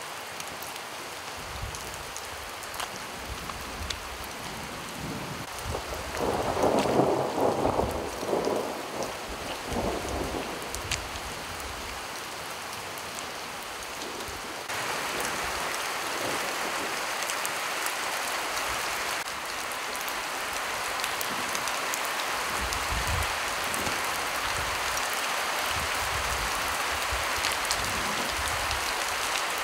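Steady rain falling, with a rumble of thunder about six seconds in that rolls on for several seconds. The rain gets louder about halfway through.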